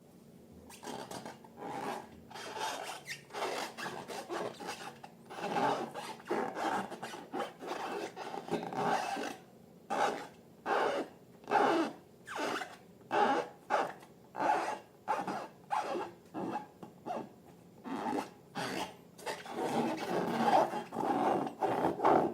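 Slime being mixed or worked, heard as a run of short wet rubbing strokes, about one and a half a second, growing louder and denser near the end.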